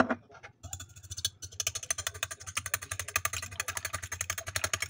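A fork beating two eggs in a ceramic plate: fast, even clicking of the fork against the plate, starting about half a second in. A sharp knock comes right at the start.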